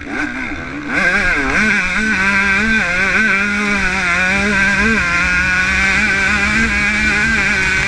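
Yamaha YZ125 two-stroke single-cylinder motocross engine, heard from the bike itself, revving up hard out of a corner about a second in, then held at high revs with small rises and dips along a straight.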